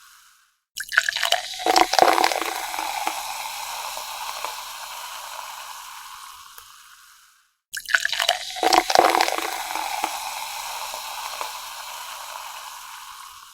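Splashing, water-like noise that starts suddenly with a few sharp splashes and fades out over about six seconds. It happens twice.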